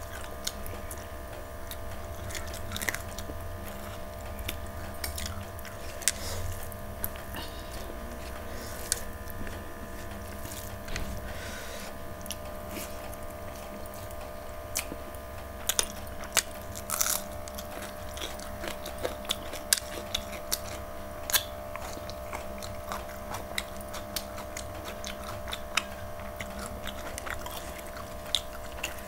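Close-up sounds of a person chewing and biting mouthfuls of rice, fried bitter gourd and chicken eaten by hand: wet mouth sounds with scattered sharp crunchy clicks, over a steady low hum.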